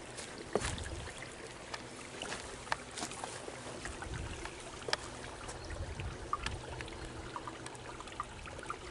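Shallow stream trickling and running over rocks, with scattered small clicks and knocks.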